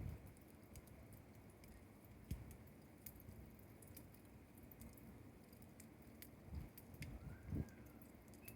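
Bonfire crackling quietly: irregular sharp pops and snaps, with a few soft low thumps.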